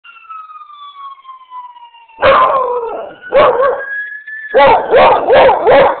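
Ambulance siren winding down in a falling wail, then about two seconds in a beagle–shepherd mix dog answers it, howling in loud, short, repeated bays, a quick run of four near the end, with the siren still sounding faintly behind.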